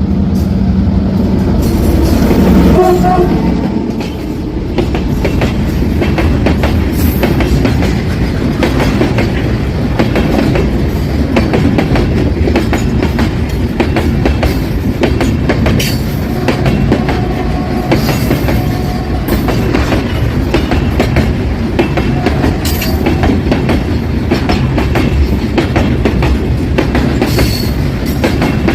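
A loaded freight train passing: the CRRC CDD-5A1 diesel locomotive goes by in the first few seconds with a pitched drone, then a long string of loaded wagons rolls past with steady wheel clatter over the rail joints.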